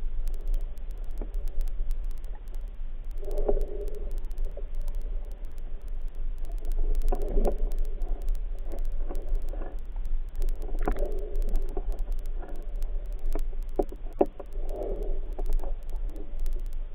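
Muffled underwater sound picked up by a camera in its waterproof housing: a steady low water rumble and sloshing that swells every three to four seconds, with a few sharp clicks.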